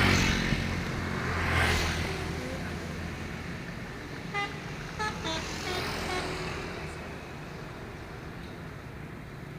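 Heavy road vehicles passing with an engine rumble and a whoosh, near the start and again about two seconds in, then a few short, clipped horn notes between about four and six seconds in, from an Indonesian 'telolet' multi-tone bus horn.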